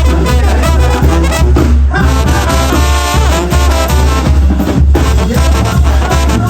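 Mexican banda brass band playing an instrumental passage: brass horns over a heavy, pulsing bass line with a steady dance beat.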